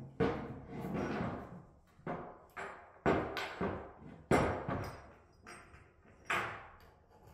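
Hydraulic control valve, control-cable ends and joystick mounting parts being handled and knocked on a tabletop: about ten irregular clunks and knocks.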